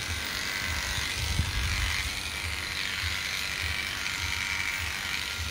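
Electric dog-grooming clippers with a 3F blade running steadily while clipping through a dog's coat.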